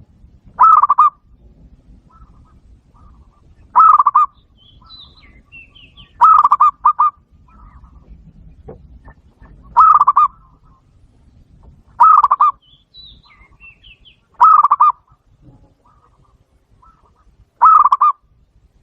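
Zebra dove (batu-bato) calling: seven short, loud trilling coos, repeated every two to three seconds, one of them doubled. Faint high chirps sound between the calls.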